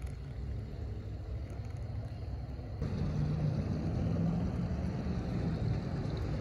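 Low, steady rumble of road traffic that grows louder about three seconds in.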